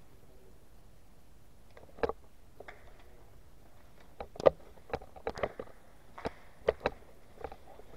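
Footsteps on a concrete floor scattered with debris: one step about two seconds in, then a run of uneven steps from about four seconds on.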